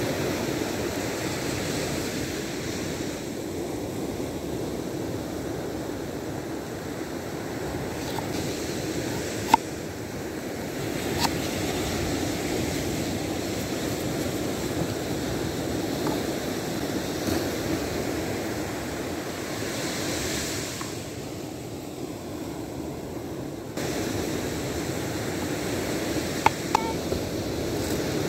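Ocean surf washing steadily onto the beach, with a few isolated sharp knife taps on a plastic cutting board, two of them close together near the end.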